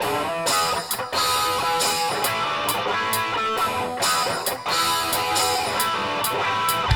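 Background music led by a strummed guitar, with a steady beat.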